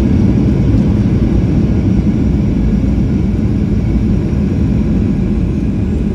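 Cabin noise of a Boeing 737-800 rolling on the ground after landing: a steady low rumble from its CFM56-7B engines and the airframe, heard from a window seat beside the wing.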